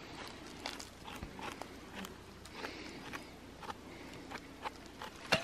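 Light rustling and scattered small clicks in dry forest leaf litter as a freshly cut porcini is handled with a knife over a wicker basket, with one sharper click near the end.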